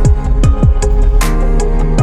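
Electronic background music with a steady beat: deep kick drums that drop in pitch, sharp snare hits and held synth chords.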